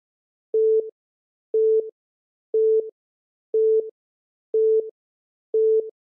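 Quiz countdown timer beeping: a short mid-pitched beep once a second, six times, counting down the seconds left to answer.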